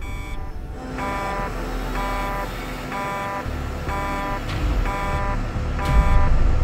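Aircraft cockpit warning alarm: a buzzing electronic tone repeating about once a second over a low rumble, with a deep boom about six seconds in.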